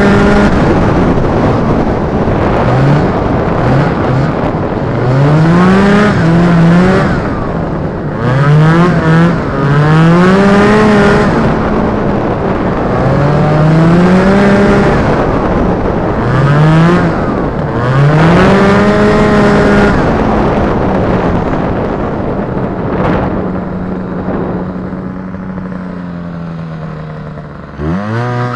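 Polaris Indy Trail snowmobile's Rotax 503 two-stroke twin under way, its pitch rising and falling over and over as the throttle is opened and eased. Near the end it holds a steady note, then drops sharply and picks up again.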